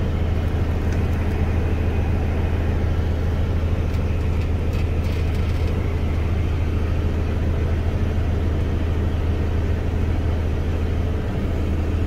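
Steady low drone of a John Deere 9620R tractor engine, heard from inside the cab, running under load while it drives the grain cart's unloading auger that is emptying barley into a semi trailer.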